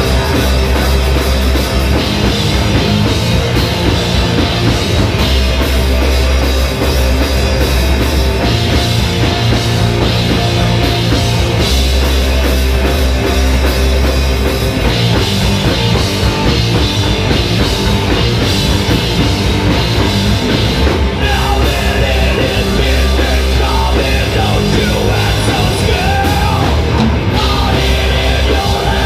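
Live rock band playing loudly: electric guitar, bass guitar and drum kit, with the low bass notes shifting every couple of seconds.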